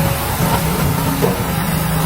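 Heavy earthmoving machine's engine running steadily under a constant noisy rumble.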